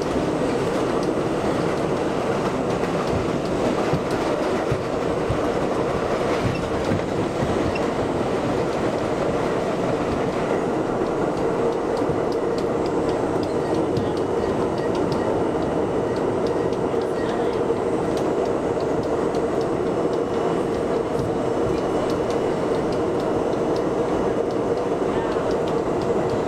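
Budd R32 subway car running on elevated track, heard from inside the car: a steady rumble of wheels on rail with a steady hum underneath, and light clicks over the rail joints.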